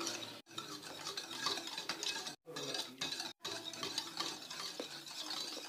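A utensil stirring a beaten-egg mixture in a bowl, with quiet scraping and light clinking against the bowl, broken by a few brief pauses.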